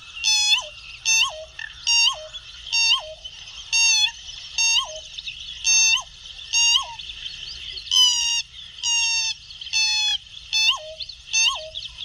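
Pheasant-tailed jacana calling over and over, about fifteen short calls spaced half a second to a second apart, each a note that rises then drops, over a steady high hiss.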